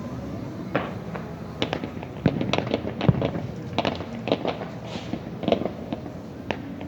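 Fireworks and firecrackers going off: an irregular string of sharp cracks and bangs, thickest in the middle seconds.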